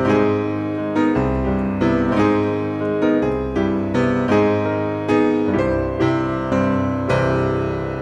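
Background piano music, a chord or note struck about once a second and left to ring.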